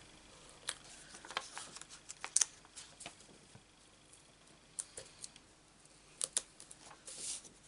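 Faint, scattered small clicks and a brief soft rustle from fingers handling small cardstock pieces and pressing them onto adhesive foam dimensionals on a craft mat.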